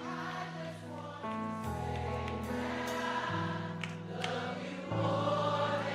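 Live gospel music: band and choir holding sustained chords, the bass moving to a new note about every second and a half, with a couple of light percussive hits.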